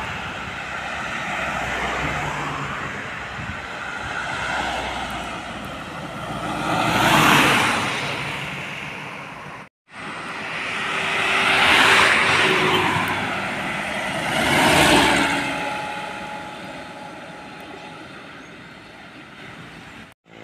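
Road traffic passing close by: vehicles swell in and fade away one after another, with three loud pass-bys of tyre and engine noise. The sound breaks off briefly just before the middle.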